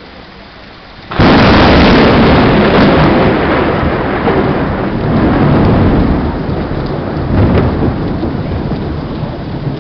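Heavy rain, then about a second in a sudden, very loud thunderclap that rumbles on and slowly fades.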